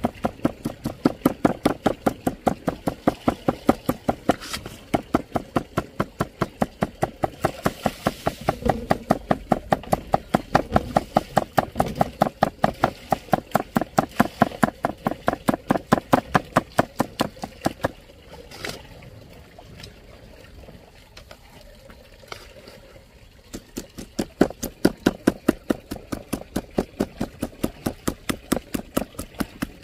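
Steady rhythmic knocking, about four strokes a second, that stops for about five seconds two-thirds of the way in and then starts again.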